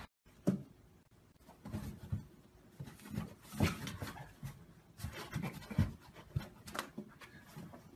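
Cat pawing at a toy sticking up through a hole in a cardboard box: a dozen or so irregular soft taps and thumps of paws on cardboard.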